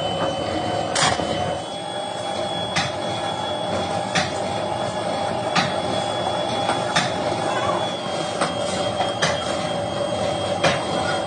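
Machinery running steadily with a high whine, and a sharp clack about every second and a half.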